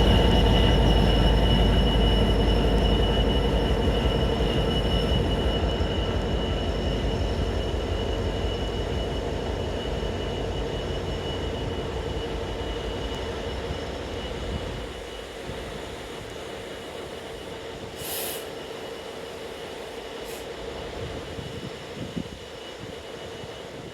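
Freight train wagons rolling on the rails with a steady high wheel squeal over a low rumble, fading away. Two short high squeaks come near the end.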